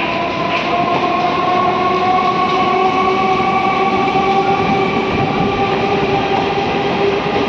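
Suburban electric multiple-unit train moving through the station, its electric traction motors giving a steady multi-tone whine over the rumble of the coaches. The whine slowly rises in pitch as the train gathers speed.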